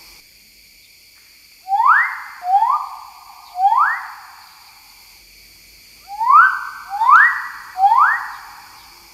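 Magnificent riflebird calling: two sets of three loud whistles, each about half a second long and sweeping sharply upward, the second set coming about two seconds after the first.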